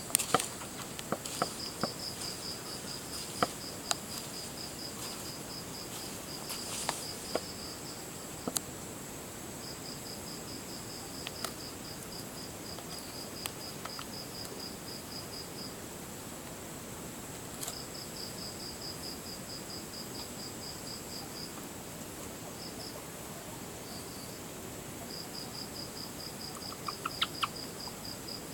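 Guinea pig chirping: long runs of rapid, high, bird-like chirps, several a second, broken by short pauses, with a few faint clicks.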